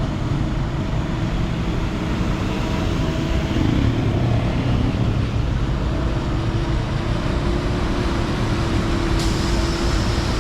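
Steady road-vehicle engine drone with tyre and road noise, swelling a little about four seconds in, with a hiss that rises up high near the end.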